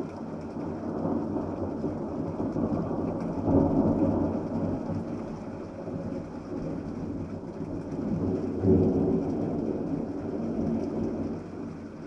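A long roll of thunder rumbling through, swelling loudest about four seconds in and again about nine seconds in, then dying away near the end, with rain falling underneath.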